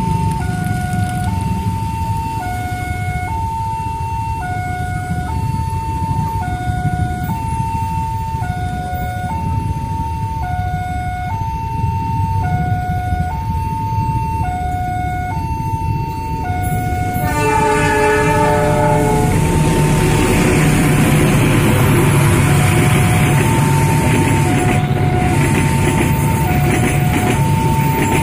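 Railway level-crossing siren sounding its two-tone warning, high and low tones alternating about once a second, while a train approaches. About 17 seconds in, the train's horn blows for a second or two. The train then runs through the crossing with a rising rumble and rail noise, the siren still going under it.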